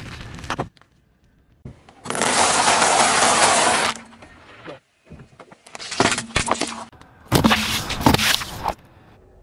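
Car tyre crushing things in a series of short cuts: a loud, dense crunching as dry egg noodles are flattened, then scattered crackles and a louder crackling as juice pouches burst under the tyre.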